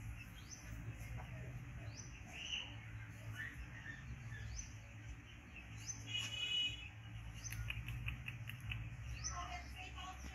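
Small birds chirping in the background, short rising chirps repeated every second or so, with a louder brief pitched call about six seconds in, over a steady low hum.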